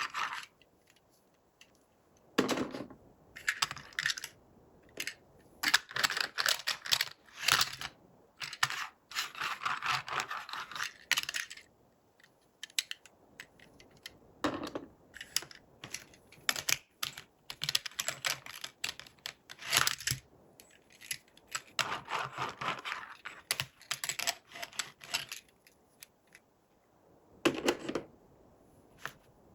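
Plastic toys and their packaging being handled during an unboxing: bursts of rapid clicking and rustling, with short quiet gaps between them.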